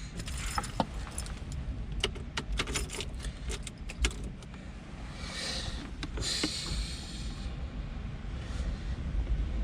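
Clicks, taps and light rattles of small hardware and cables being handled, over a steady low rumble, with two short hissing rushes about five to seven seconds in.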